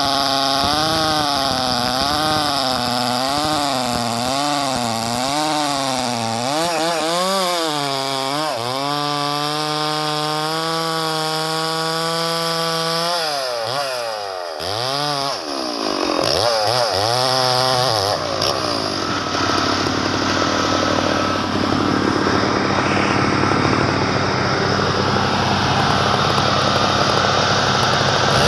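Husqvarna two-stroke chainsaw cutting a tualang log, its engine pitch wavering up and down about once a second as the chain works the cut. About eight seconds in the pitch holds steady for several seconds, then swings widely, and in the second half a rougher, denser noise without clear pitch takes over.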